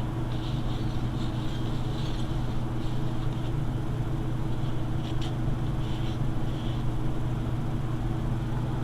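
A steady low hum throughout, with faint, intermittent soft rubbing of paper towel wiping old thermal paste off the CPU and heatsink.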